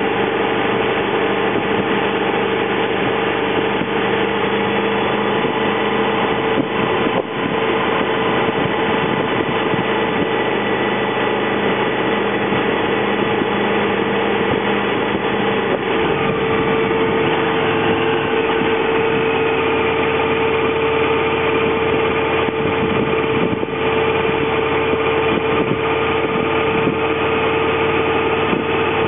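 Honda VFR motorcycle's V4 engine running steadily while riding at a relaxed, even pace, with one strong held engine tone. The note shifts slightly about halfway through.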